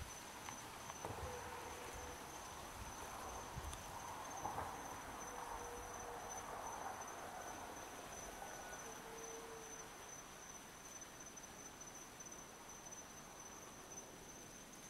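Night insects trilling: one steady, high-pitched tone that does not vary, faint over a soft background hiss. A few soft low bumps come in the first few seconds.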